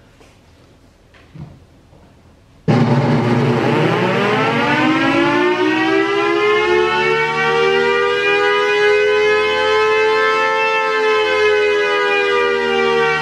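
Federal Signal Thunderbolt 1000AT siren starting suddenly under three seconds in and winding up. Its pitch rises over a few seconds to a loud, nearly steady wail that holds.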